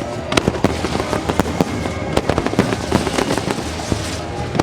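Aerial fireworks bursting in a rapid, continuous run of sharp bangs and crackles, with the show's soundtrack music playing underneath.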